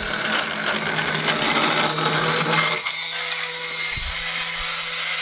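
Small electric motor spinning a plastic propeller with a steady hum, while the fan cart rolls away across a wooden tabletop. The rolling and air noise falls away after about three seconds, leaving the hum, with a single knock about four seconds in.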